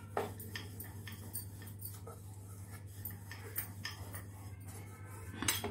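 Wooden rolling pin rolling out dough on a steel plate, with irregular light clicks and taps as the pin and plate knock, and a louder knock near the end. A steady low hum sits underneath.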